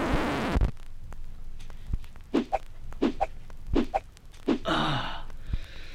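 Close rustling at the start. Then a man makes short wordless vocal sounds three times, followed near the end by a longer vocal sound falling in pitch.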